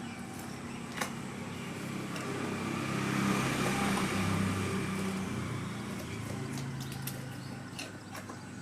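A motor vehicle passing by: its engine hum swells to a peak about three to four seconds in, then fades away. A few sharp clicks come about a second in and again near the end.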